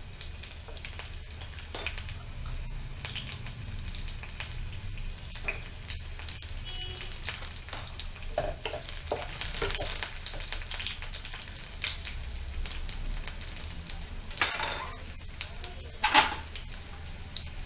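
Garlic cloves, a bay leaf and curry leaves frying in hot ghee in a kadhai: a steady sizzle with many small crackles, stirred now and then with a wooden spatula, with two louder strokes near the end.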